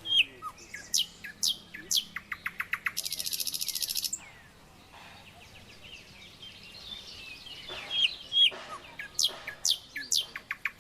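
A songbird singing a repeated phrase: a few sharp falling whistles, then a rapid run of notes ending in a dense, buzzy trill about a second long, with the phrase coming again near the end.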